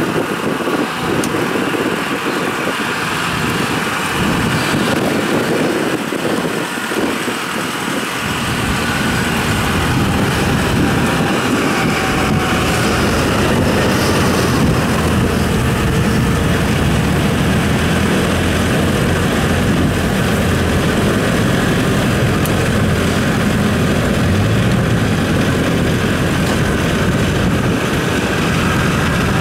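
Kubota DC-70 combine harvester's diesel engine running steadily under way as the machine crawls on its tracks, growing louder and deeper about eight seconds in as it comes close.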